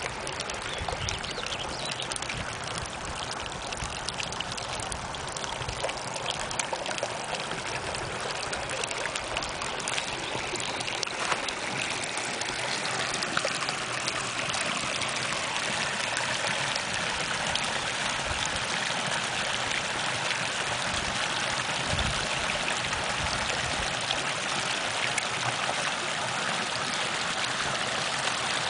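Shallow creek water running and trickling over rocks and gravel, a steady rushing that grows a little louder about halfway through.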